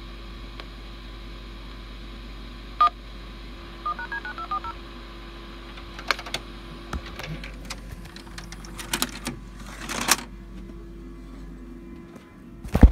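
Touch-tone (DTMF) phone dialing recorded at the start of a VHS tape, played back over a steady low hum: a single beep, then about a second later a quick run of about eight dialing tones. Clicks and knocks follow, and there is a loud thump near the end.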